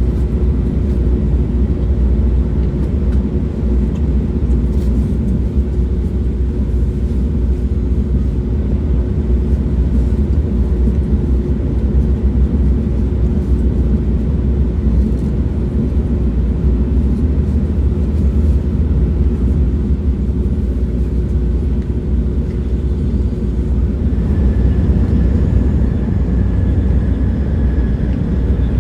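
Train running at speed: a steady low rumble with a constant hum, and a faint high whine coming in near the end.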